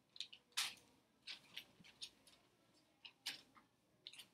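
Faint scratches and taps of handwriting on a tablet's glass touchscreen: about ten short, quick strokes in an irregular rhythm, the loudest about half a second in.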